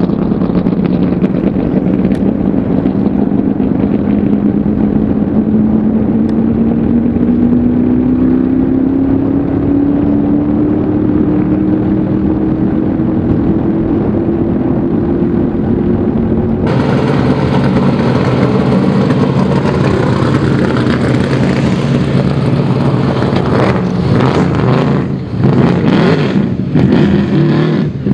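Land-speed streamliner's engine pulling away down the salt course, its note climbing slowly and steadily as it accelerates. About two-thirds of the way through the sound cuts to a different vehicle: a pickup truck driving over the salt, its engine running steady under a rushing noise.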